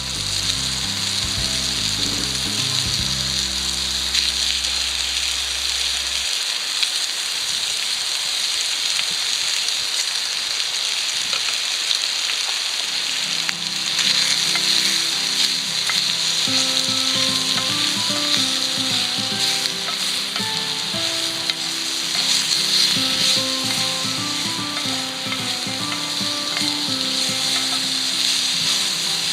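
Food sizzling steadily as it fries in a pan, with soft background music.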